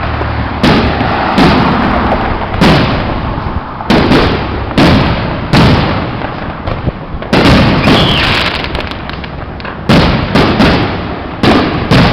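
Fireworks going off: a dozen or so sharp, loud bangs at irregular intervals, over a constant din of crackling and further bursts between them.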